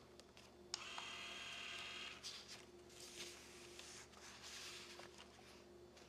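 PageFlip Lite automatic page turner: a click, then its small motor whirring steadily for about a second and a half as it turns the page, followed by a few light clicks and soft paper rustling as the page settles and is handled. Faint throughout.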